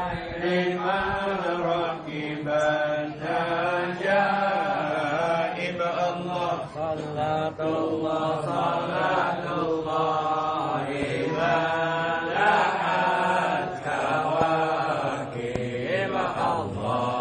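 Men chanting an Islamic devotional text together from their booklets, a slow melodic recitation with long held, wavering notes and brief pauses for breath.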